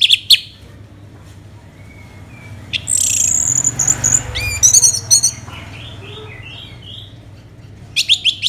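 Orange-headed thrush singing: a rapid high trill at the start, a loud run of high notes with one falling note about three to five seconds in, then softer whistled phrases, and another rapid trill near the end.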